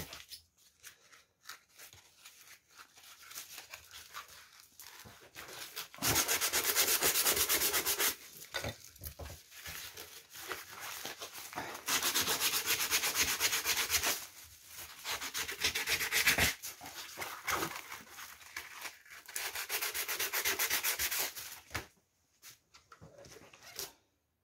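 Sandpaper rubbed by hand against an old metal oil can to take off rust and grime. Four loud spells of fast back-and-forth rubbing, each about two seconds long, with softer scratching in between.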